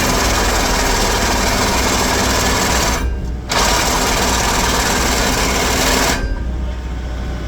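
Excavator's hydraulic vibratory attachment running as a fast, buzzing rattle over the steady low note of the excavator engine. It runs for about three seconds, stops for half a second, then runs nearly three seconds more before cutting off.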